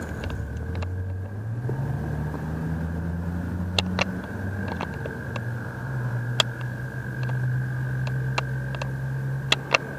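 A low engine hum that rises in pitch about a second and a half in, drops back around the middle, then holds steady. A faint steady high tone runs throughout, with scattered light clicks.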